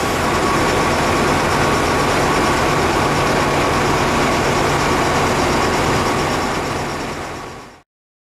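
Diesel engine of a Tatra fire engine running steadily, fading out and cutting to silence near the end.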